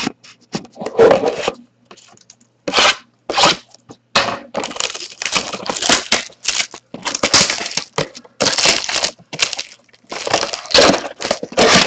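A sealed trading-card box being opened by hand: its wrapping and cardboard crackle and tear in a rapid, irregular run of rustling bursts.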